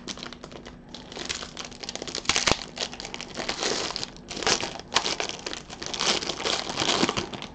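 Foil wrapper of a Panini Spectra basketball card pack being pulled open and crumpled by gloved hands: continuous irregular crinkling and crackling, with louder crackles in bursts.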